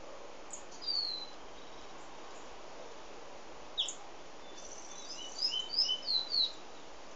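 Cinnamon-rumped seedeater (Sporophila torqueola) singing high slurred whistles. There is a falling note about a second in and a sharp downward note near four seconds, then a quick run of six or seven slurred notes near the end, over a steady hiss.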